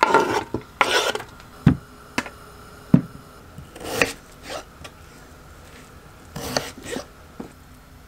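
Food preparation with a fresh green onion: short rasping, rubbing strokes of peeling and cutting, with a few sharp knocks of a knife on a cutting board.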